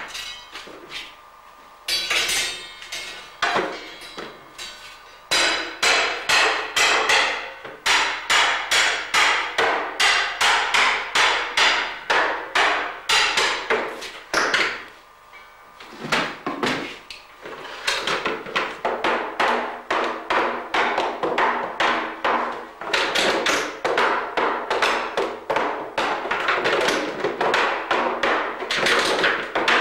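A cooper's hammer striking metal hoops and tools while setting up a wooden herring barrel: a long run of sharp blows, about two a second, each with a short metallic ring. There is a brief pause about halfway through.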